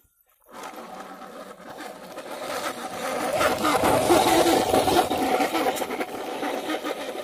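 Plastic wheels of a toy police car rolling and grinding over sand and grit as it is pushed by hand, a grainy rumble that swells to its loudest around four to five seconds in and then eases off.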